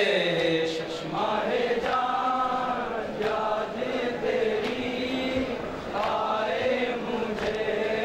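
Group of men chanting a Shia noha, a mourning lament, in unison into microphones, in long held lines that rise and fall.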